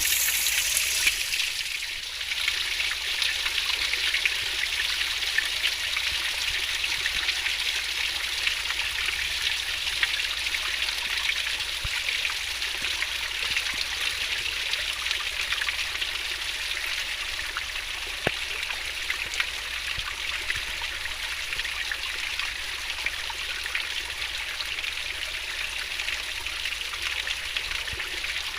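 A fast-flowing stream babbling and rushing steadily, with small splashes throughout.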